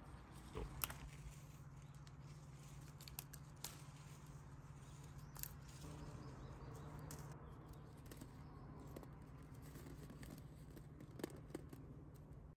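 Near silence: faint outdoor ambience with a steady low hum and a few soft clicks and rustles.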